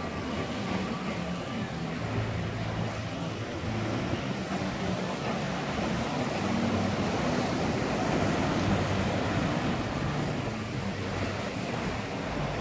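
Sea waves breaking and washing over the rocks of a rocky shoreline, a continuous rushing surf, with a low steady rumble underneath.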